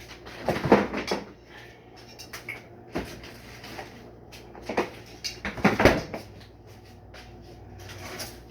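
Kitchen handling sounds: a few knocks and clunks about half a second to a second in, a single knock at three seconds, and a cluster of clatters around five to six seconds in.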